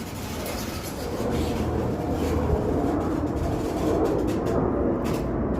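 Storage unit's metal roll-up door being pushed open, rattling steadily as it rolls up.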